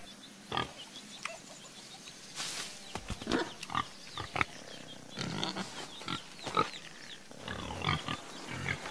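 Pig grunts: a string of short, separate grunting calls.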